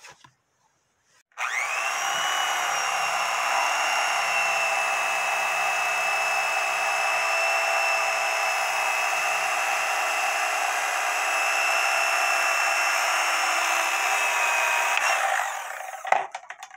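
Electric fillet knife running steadily as its blades cut a catfish fillet away from the skin. The motor whine comes up about a second and a half in, holds one pitch, and winds down near the end, followed by a few light clicks.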